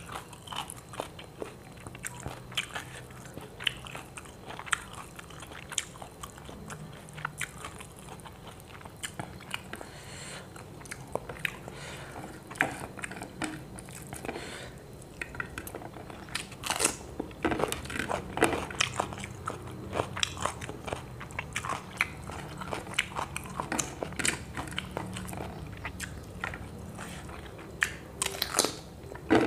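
A person chewing and crunching mouthfuls of fried tilapia and rice eaten by hand, with many short, sharp, irregular crunches and mouth smacks, busier and louder in the second half, over a faint low hum.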